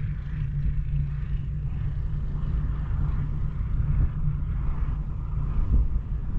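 Wind buffeting the microphone: a steady low rumble that rises and falls.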